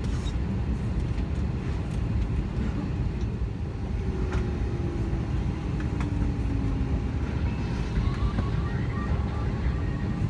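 Steady low rumble inside the cabin of an Airbus A321 parked at the gate: the aircraft's air system running. There are a few faint clicks, and a faint tone falls slowly in pitch about halfway through.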